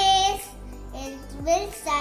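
A young child's voice over steady background music.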